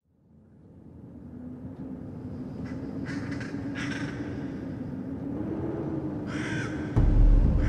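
Several harsh, crow-like cawing calls over a low steady drone that fades in from silence. A sudden loud deep boom comes about seven seconds in.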